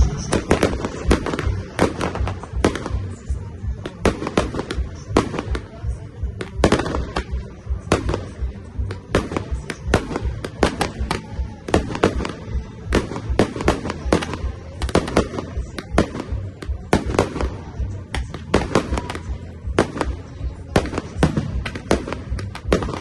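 Aerial fireworks shells bursting in a rapid, irregular string of bangs, several a second, with music playing underneath.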